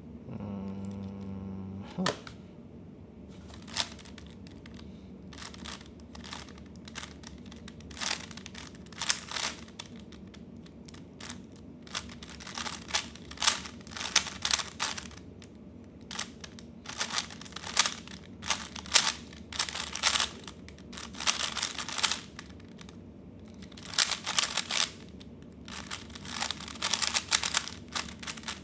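Plastic 3x3 speedcube being turned fast through a timed solve: bursts of rapid clicking and clacking as the layers snap round, broken by short pauses.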